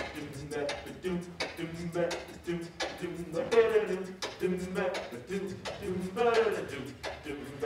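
Mixed-voice a cappella group singing a repeating bass line and held chords while a beatboxer keeps a steady beat.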